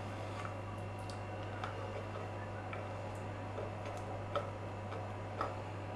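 Scattered light taps and clicks of fingers and diced peach pieces against a wooden cutting board as the cubes are gathered up by hand, over a steady low hum.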